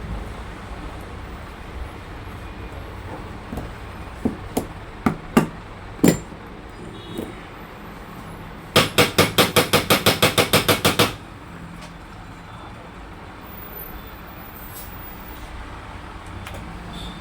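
Hammer tapping: a handful of separate knocks, then a quick run of about fifteen blows in just over two seconds.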